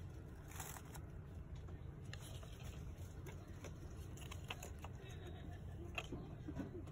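Faint steady low hum of store background, with scattered light clicks and small rattles.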